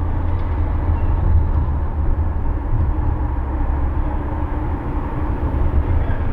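Car driving through city streets: a steady low rumble of road and engine noise.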